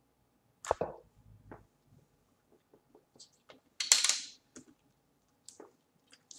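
Quiet desk handling noises: a knock under a second in, a few small clicks, and a brief louder crinkling rustle about four seconds in as a plastic water bottle is handled for a drink.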